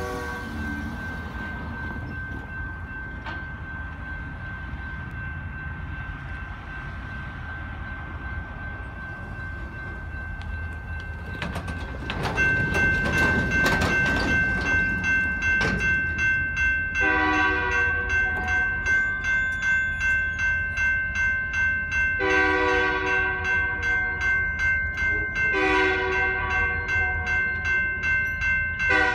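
A railroad crossing warning bell starts dinging about halfway through, a steady quick ring of about two strokes a second, as the crossing signals activate. Over it, the approaching BNSF freight's diesel locomotive horn sounds three long blasts and then a short one, the standard warning for a grade crossing.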